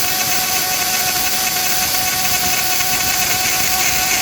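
Dremel rotary tool on a DIY mini CNC mill running steadily as its metal-cutting bit slowly mills a slot into a metal model-train chassis under liquid coolant. A constant whine of several fixed tones over a steady high hiss.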